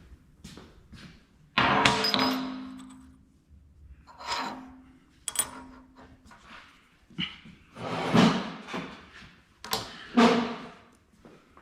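Several knocks and clanks of metal tools and parts being handled and set down on a workbench, the loudest about a second and a half in, some with a short metallic ring.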